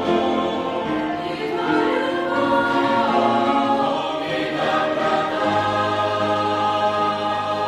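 Youth church choir singing a Christian hymn in Russian, several voice parts together on long held notes.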